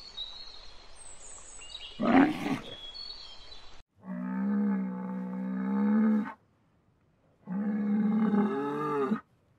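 A camel's short, loud grunting roar about two seconds in, then, after a sudden cut, a cow mooing twice, each moo a long, steady call of about two seconds.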